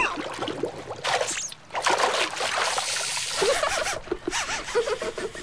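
Animated sound effects of pool water splashing and trickling, with short wavering warbling sounds in the second half.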